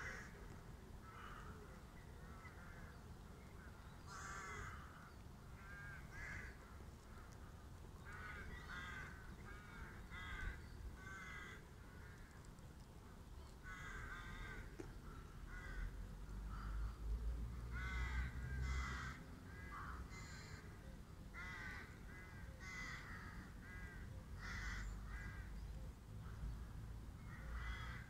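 Birds giving short calls over and over in quick runs. A low rumble swells under them about halfway through.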